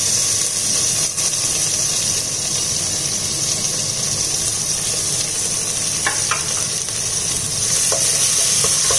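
Chopped onions frying in a nonstick pot with a steady sizzle, while a wooden spatula stirs them.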